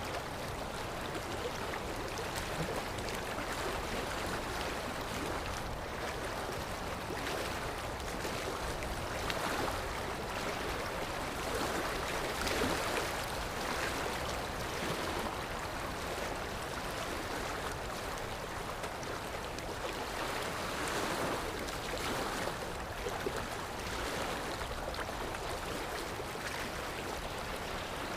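Sea waves washing ashore: a steady rush of surf that swells and eases every few seconds.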